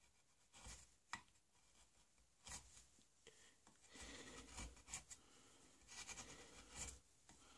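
Faint scraping of a hand chisel paring shavings from a wooden rifle stock. A few short strokes come first, then longer strokes from about four seconds in.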